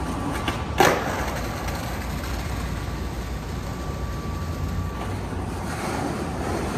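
Skateboard wheels rolling on rough pavement, a steady rumble, with one sharp clack about a second in.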